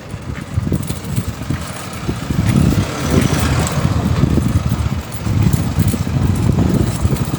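A motor vehicle driving along a street: engine and road noise as a low, uneven rumble, growing a little louder about three seconds in.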